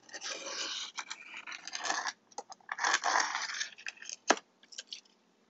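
Tungsten-wheel glass cutter scoring a mirror tile along a metal straightedge: a gritty scratching in strokes. The scoring runs for about two seconds, with a shorter pass about three seconds in, and then a few light clicks, one sharp click about four seconds in.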